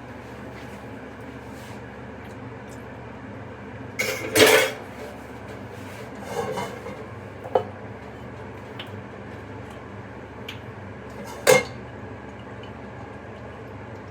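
Dishes and cooking utensils clattering and knocking together in a few separate bursts, the loudest about four seconds in and a sharp knock near the end, over a steady low hum.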